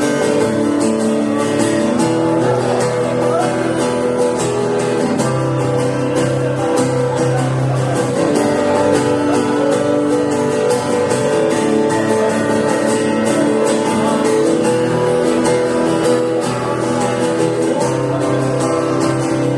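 Acoustic guitar strummed steadily, playing the chords of a worship song.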